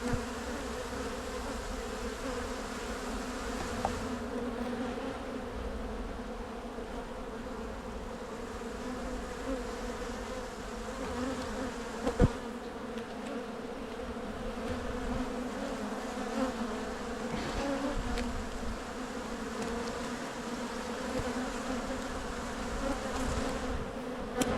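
Honey bees of an open hive humming steadily. A sharp click about halfway through, typical of a frame or hive tool knocking against the box.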